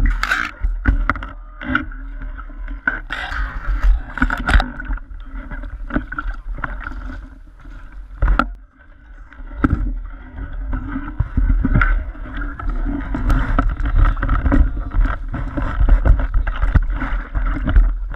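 Water splashing and sloshing as a hooked trout thrashes in a landing net at the shoreline, with knocks of the net frame, over a steady low rumble of wind on the microphone.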